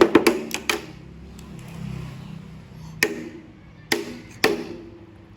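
A drum being beaten: a quick run of hits at the start, then single strikes about three, four and four and a half seconds in, each with a short ringing tone.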